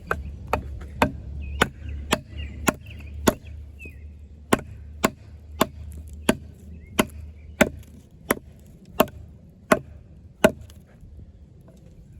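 Batoning a large fixed-blade bowie knife (Off-Grid Caiman XXL) into a log: a wooden baton strikes the blade's spine about seventeen times in sharp knocks, roughly one every half second to second, with a brief pause about four seconds in. The strikes stop about ten seconds in.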